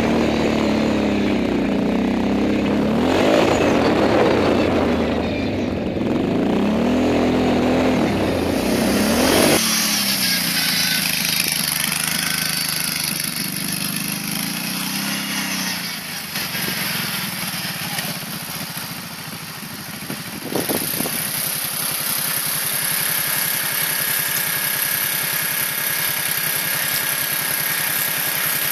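Quad (ATV) engine revving up and down over and over, loud and close from on board. About ten seconds in the sound changes abruptly to a quieter, more distant engine running, with a single knock about twenty seconds in and a steady engine hum after it.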